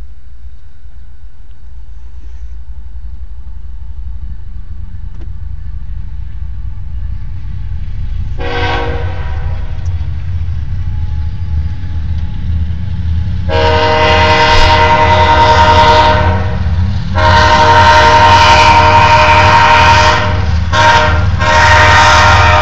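Diesel locomotive air horn sounding on an approaching BNSF intermodal train: one blast about eight seconds in, then long, long, short, long, the grade-crossing signal. A low rumble of the train grows louder underneath.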